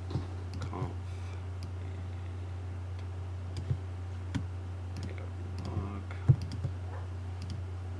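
Scattered clicks of a computer mouse and keyboard, about half a dozen, the loudest about six seconds in, over a steady low hum.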